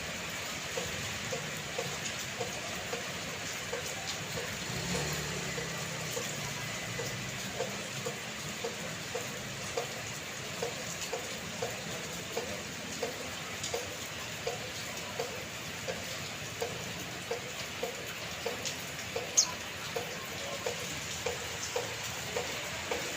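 Steady rain hissing, with water dripping in a regular beat about every two-thirds of a second. A low rumble comes and goes a few seconds in, and a single sharp click near the end is the loudest sound.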